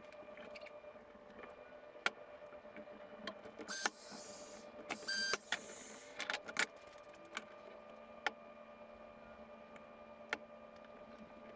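Wooden trim boards being handled and set against a pine planter box: scattered light knocks and clicks of wood on wood, over a faint steady hum.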